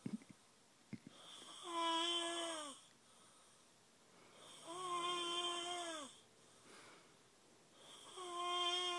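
Snoring: three long snores about three seconds apart, each a steady tone with a hissy edge lasting about a second and dropping in pitch as it ends. A couple of faint clicks come in the first second.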